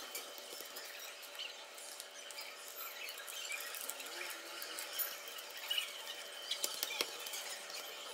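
Light handling sounds: scattered small clicks and soft squeaks, with a few sharper clicks in the last couple of seconds, over a faint steady hum.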